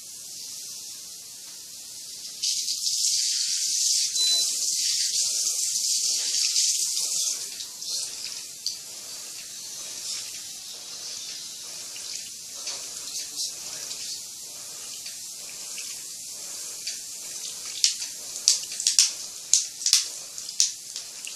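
Water running into the washing machine's tub as it fills, a steady hiss that grows louder about two seconds in and eases off after about seven seconds. Near the end comes a quick run of sharp clicks.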